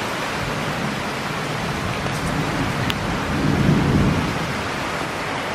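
Heavy monsoon rain pouring steadily, a dense even hiss. A low rumble swells and fades a little past halfway.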